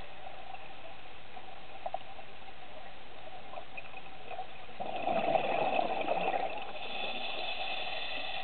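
Underwater recording with a steady hiss and faint steady hum, and a burst of gurgling bubbles about five seconds in, lasting a second and a half, typical of a scuba diver's exhaled regulator bubbles.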